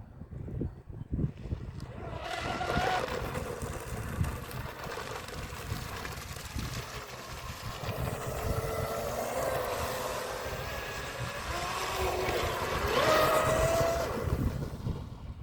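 Electric RC hydroplane boat speeding across the water on a 3S battery: its motor whine rises and falls with the throttle, with a hiss of spray, over wind rumbling on the microphone. The whine comes in about two seconds in, swings up sharply near the end and cuts off just before it.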